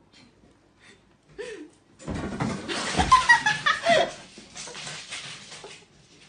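A person laughing: it breaks out about two seconds in, is loudest about a second later, then trails off near the end.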